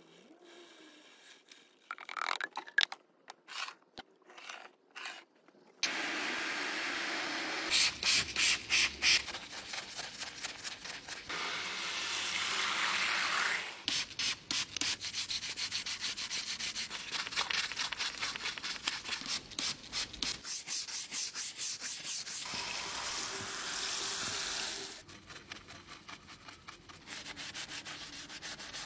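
A stiff brush scrubbing caked grime off a car engine's parts and hoses in quick back-and-forth strokes, with a few short pauses. Near the start, before the scrubbing, there are a few light clicks and taps.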